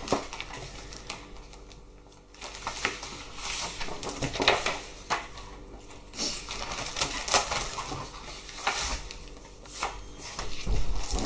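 Sheets of patterned craft paper in a clear plastic packet being handled and shuffled, rustling and crinkling in short irregular bursts, with a soft low bump near the end.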